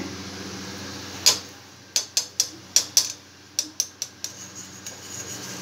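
A steel slotted spoon clicking and tapping against a steel kadhai of frying vadas: about a dozen sharp, uneven taps, starting about a second in and running till near the end, over a low steady hiss of frying oil.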